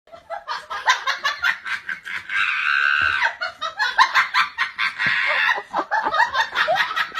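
People laughing and giggling in quick, high-pitched bursts, with a longer held squeal about two and a half seconds in.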